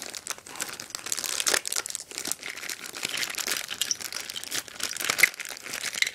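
Clear plastic blister packaging crinkling and crackling irregularly as it is squeezed and pulled open by hand.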